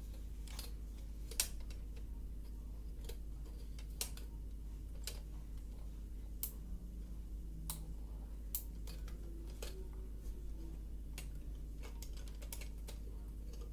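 Scattered light clicks and taps at an uneven pace, about one a second, over a steady low hum.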